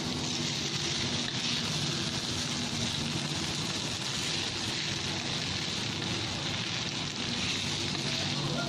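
Noodles frying in a hot pan, sizzling steadily.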